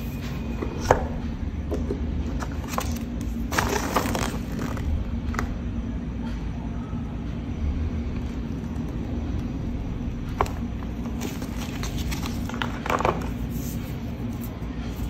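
Unboxing handling sounds: a cardboard watch box, a paper manual and a rubber strap being handled, giving scattered clicks, rustles and scrapes, with a small cluster of them about four seconds in. Under it runs a steady low rumble with a faint hum.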